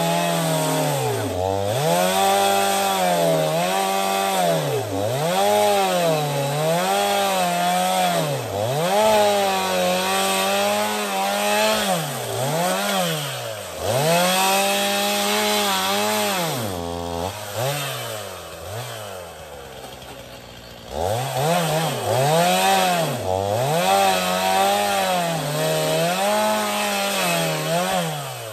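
Two-stroke chainsaw cutting through a dead pine log, its engine pitch dipping and climbing again and again as it bogs under load in the cut. About two-thirds of the way through it drops back toward idle for a few seconds, then revs up and cuts on. The chain is being dulled by the iron-hard pine heartwood, and the sawyer thinks it has just about had it.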